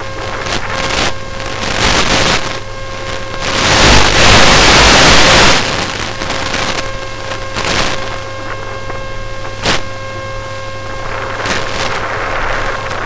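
Wind rushing over the RC airship's onboard microphone above a steady motor and propeller hum. A loud gust of rushing noise swells about three and a half seconds in and fades about two seconds later, and a sharp click comes near ten seconds.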